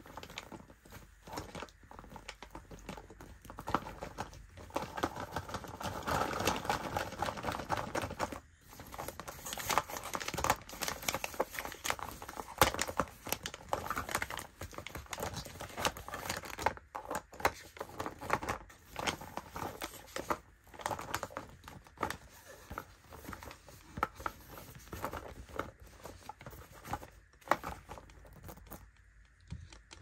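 Hands rummaging in a sequined fabric pouch, crinkling a shiny gold metallic wrapper against the sequins, with scattered sharp clicks and taps; busiest from about five to fifteen seconds in.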